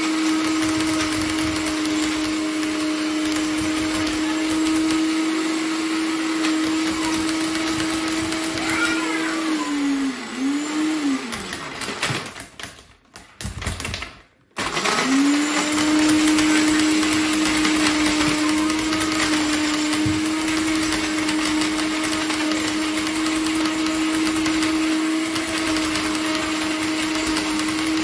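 SilverCrest blender motor running steadily while crushing ice cubes. About ten seconds in it dips in speed, stops for about two seconds, then starts again and rises back to full speed.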